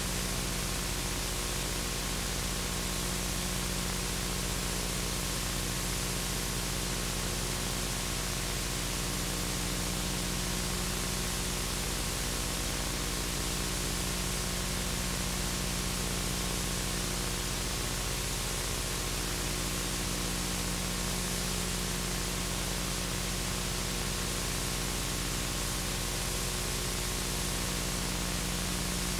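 Steady tape hiss with a low hum underneath, the silent audio track of an old analogue videotape; no music or voice.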